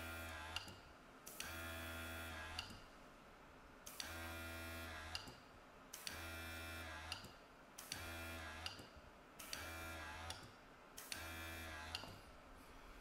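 Small airbrush compressor motor running in short bursts of about a second, six or seven times, each started and stopped with a click, as light coats of touch-up paint are sprayed.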